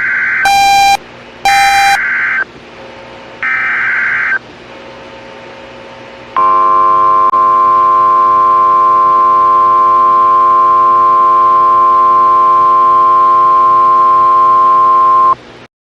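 Emergency Alert System alert: a few harsh digital data bursts of the header code in the first four seconds, then a steady, piercing attention tone that starts about six seconds in, holds for about nine seconds and cuts off just before the end.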